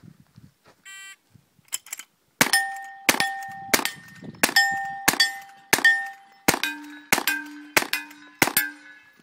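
A short electronic beep from a shot timer about a second in, then a rifle fired rapidly about ten times, roughly two-thirds of a second apart, each shot followed by the clang and ring of a steel plate target being hit. After about six shots the ring changes pitch as the shooter moves on to other plates.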